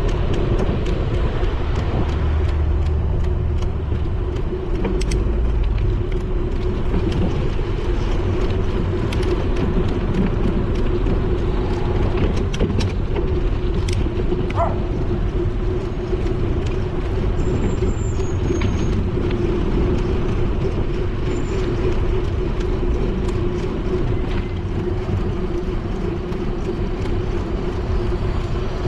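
Wind rumbling on the microphone of a moving bicycle, over steady road noise with a constant hum and occasional clicks from bumps. Cars and a bus pass close by in slow traffic.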